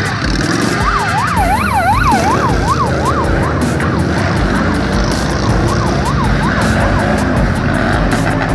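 Many motorcycle engines running together as a parade of bikes rides past. A siren warbles rapidly up and down, about two sweeps a second, from about a second in for a couple of seconds, then again more faintly in the middle.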